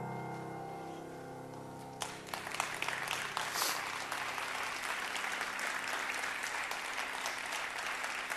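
A held grand-piano chord rings and fades. About two seconds in, an audience bursts into applause that keeps going.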